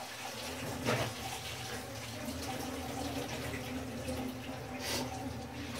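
Spice masala sizzling in a hot frying pan as thick blended banana flower paste is poured in, with light knocks about a second in and again near the end.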